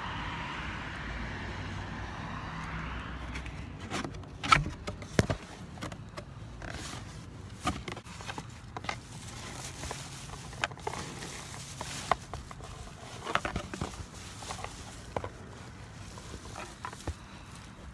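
A cardboard box being opened and its paper-shred packing rustled and handled as a brass urn is unpacked: a run of short crackles, knocks and clicks, the loudest about four and a half seconds in.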